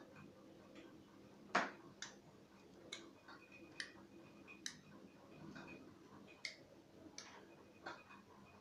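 Model railway running: a string of sharp clicks, roughly one a second, from model train wheels crossing rail joints, over a faint steady electric hum from the layout.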